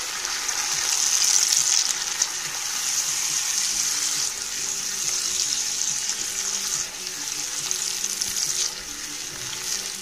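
Onions and barbecue sauce sizzling in a non-stick frying pan while a silicone spatula stirs them, a steady frying hiss that softens a little near the end.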